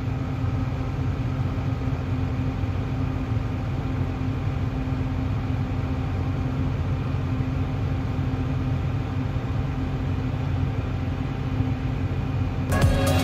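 Case IH combine's diesel engine running steadily while harvesting corn: an even low drone with a constant hum. Music comes in near the end.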